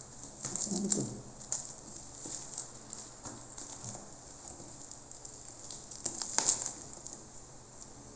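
Thin plastic wrapping crinkling and rustling as hands pull it off a cardboard box, with scattered small crackles. It is loudest about a second in and again at about six and a half seconds.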